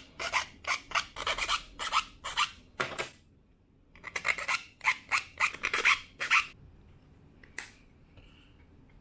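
Small hand file rasping back and forth on the tabs of a 3D-printed plastic plate, about three strokes a second, filing away the slight flare (elephant's foot) at the printed edge so the tabs fit. The strokes run for about three seconds, pause, resume for about two more seconds, and one light click follows near the end.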